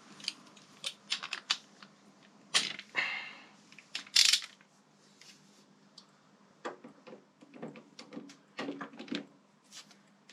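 Irregular clicks, clinks and knocks of hand tools and metal motorcycle brake parts being handled during reassembly, with a louder knock about two and a half seconds in and another about four seconds in.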